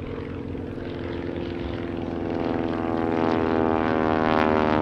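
Stinson Reliant's radial piston engine and propeller droning in flight, a steady pitched note that grows steadily louder as the aircraft comes closer.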